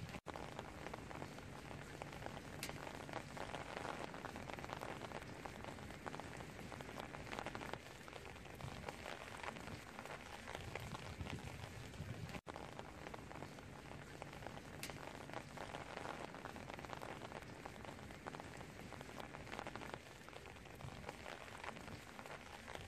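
Steady rain falling on garden plants, a dense even hiss of many small drop hits on leaves and flowers, with a split-second dropout about halfway through.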